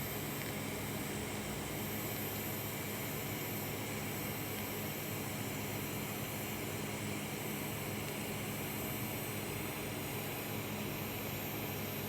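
Electric arc welding of a 5 mm fillet weld: the arc gives a steady, even hiss with a constant low hum underneath.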